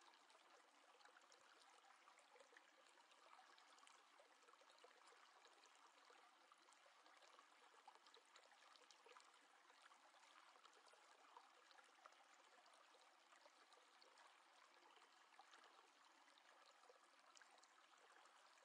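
Near silence: a faint steady hiss of room tone, with tiny scattered ticks.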